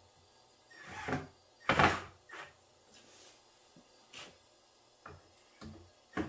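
Wooden drawer being shifted and knocked while its drawer front is adjusted: a short scrape, then a loud clunk about two seconds in, followed by lighter taps and knocks of wood and tools being handled.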